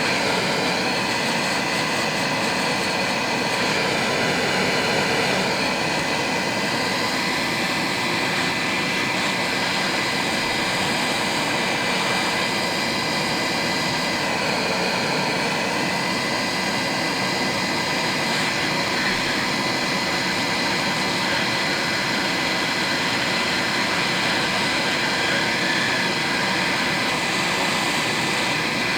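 A 550 W micro hot air gun blowing steadily: its fan and airflow give an even whoosh with a faint steady whine, unchanging throughout.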